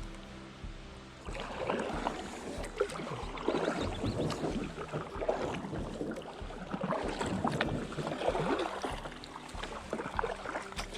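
Kayak paddle strokes dipping and splashing in the water, starting about a second in and coming in repeated swells every second and a half or so.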